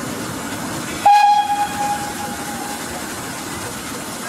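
Steam locomotive whistle, most likely from BR Standard Class 4 2-6-4 tank No. 80080: one loud, steady, high note that starts sharply about a second in, holds for nearly two seconds and then tails off.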